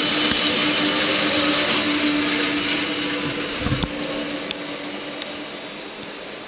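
Škoda electric locomotive of Czech Railways passing close by, its motors and cooling fans giving a steady whirring hum with one held tone. The sound slowly fades as the locomotive moves away.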